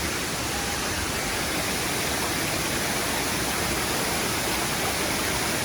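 Waterfall: falling water making a steady, unbroken rushing.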